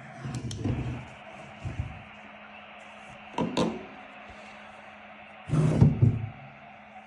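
A few hard knocks and thuds, as of something being handled or shut, the loudest near the end, over a steady low hum.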